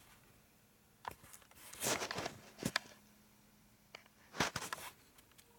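Light clicks and short scrapes from a hand-held outside micrometer as it is turned and set against metal work in a lathe chuck. There are a few scattered handling sounds, a small cluster about two seconds in and another near the end.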